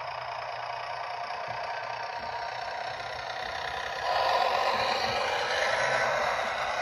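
Model Class 101 diesel multiple unit running along the layout track: a steady whirring rumble that grows louder about four seconds in as the train draws alongside.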